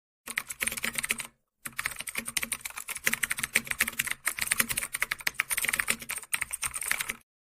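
Rapid clicking of computer keyboard keys, like fast typing, with a short break about a second and a half in; it cuts off abruptly near the end.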